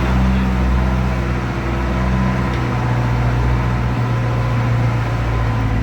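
Boat engine running steadily at an even low pitch.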